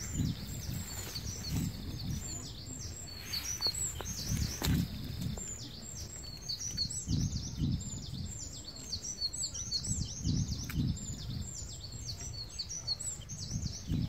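Many small songbirds chirping and singing together, a dense run of short quick high notes with no pause, over irregular low rumbles.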